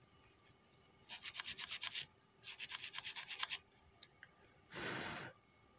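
Stiff brush scrubbing a car stereo's circuit board in two bursts of rapid back-and-forth strokes, then a short rush of air about five seconds in.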